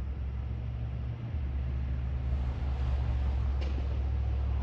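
Steady low motor rumble, like an engine idling. A hiss builds over the last couple of seconds, and a faint crack comes about three and a half seconds in.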